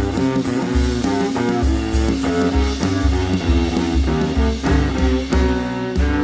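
Instrumental break of a jazz ballad: plucked string notes over a regular low bass line, with no singing.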